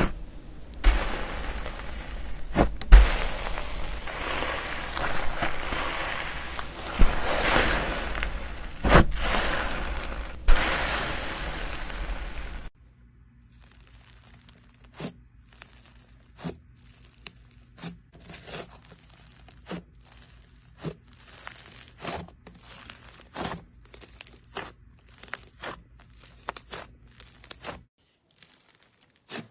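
Slime worked by hand: for about the first half, loud, dense crunchy crackling with sharp clicks. It cuts off abruptly and is followed by quiet, scattered pops and clicks, about one or two a second.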